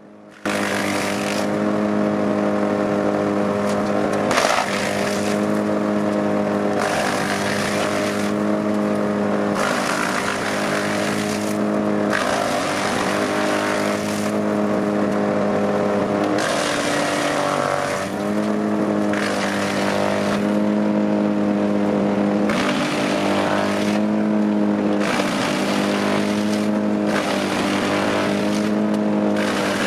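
Large wood chipper running under load while chipping a pine tree: a steady engine note with a burst of chipping noise every second or two. The engine pitch sags briefly a few times as the wood loads it.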